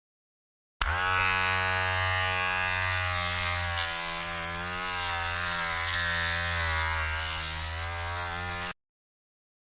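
Electric hair trimmer buzzing, a steady low hum with a dense overtone-rich drone; its pitch wavers slightly in the middle. It starts abruptly just under a second in and cuts off abruptly about a second before the end, with silence on either side.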